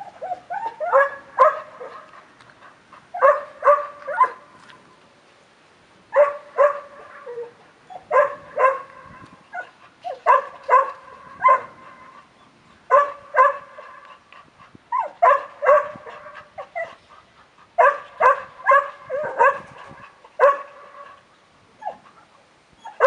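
A dog barking in bouts of three or four quick barks, a new bout about every two to three seconds.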